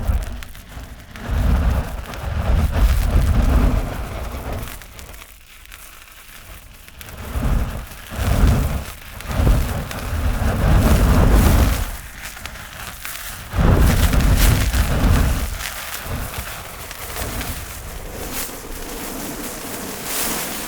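Large fire burning, with about six surges of deep rumbling flame lasting a second or two each over steady crackling.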